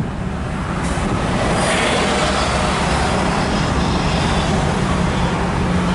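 1966 Ford Mustang's straight-six engine running with road noise, heard from inside the car while driving; it grows louder over the first couple of seconds.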